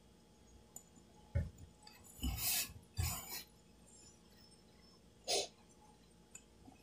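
Hands kneading a crumbly mixture of grated coconut and condensed milk in a glass bowl: a few faint, scattered rustles and soft knocks, with a low knock about a second and a half in.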